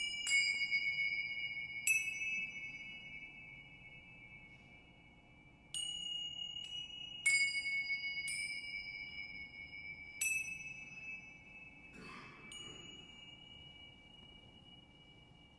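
Tibetan finger cymbals (tingsha) struck about eight times at uneven intervals, each strike a sudden high, bell-like ring that hangs on and slowly fades, the rings overlapping one another.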